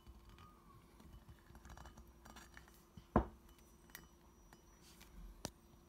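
Quiet handling sounds of fingers pressing a strip of adhesive lead tape onto the inside rim of an indoor-trainer flywheel, with a sharp click about three seconds in and a smaller one near the end.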